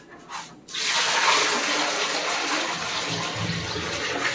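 Water poured from a plastic tub into a ceramic one-piece toilet bowl: a steady gushing splash that starts about a second in. The bowl is being filled to test the newly set toilet's floor-outlet joint for leaks.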